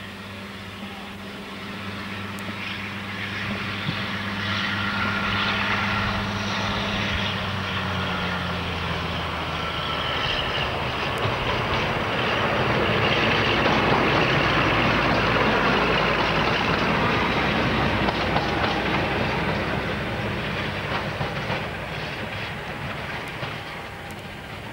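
Class 52 'Western' diesel-hydraulic locomotive with twin Maybach engines passing close by, the engine and rail noise building to a peak about halfway through and then easing off, with a high whine in the first half.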